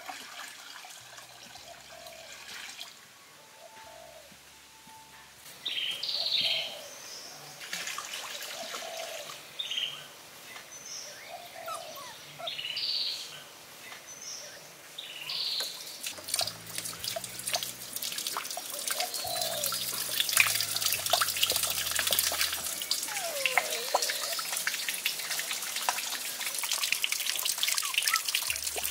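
Birds chirping and calling, then water trickling and splashing that grows steadily louder through the second half.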